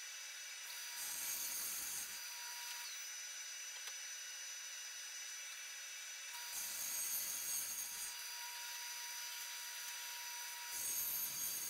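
Table saw ripping an oak panel: three spells of louder cutting noise, about a second in, about six and a half seconds in and near the end, over a faint steady hum.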